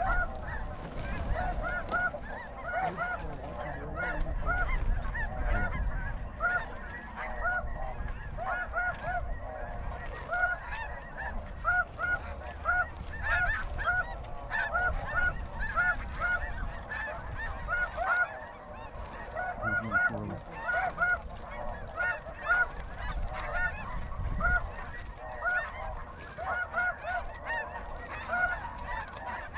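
Snow geese calling: a dense chorus of many overlapping honks, one after another without a pause.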